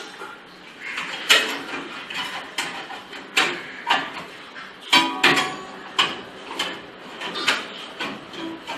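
A series of short knocks and scrapes, roughly one every half second to second, from hand work on a gypsum board false ceiling.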